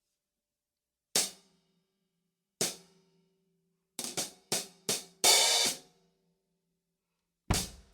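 Zildjian hi-hat cymbals played on their own: two single hits a second and a half apart, then four quick strokes and a louder open wash lasting about half a second. A heavier hit with a deep thump comes near the end.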